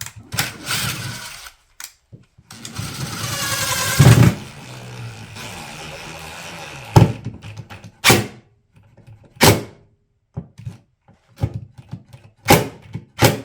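Cordless drill running, its motor whine rising for a second or two, followed by several sharp knocks and clicks of wood and tools being handled.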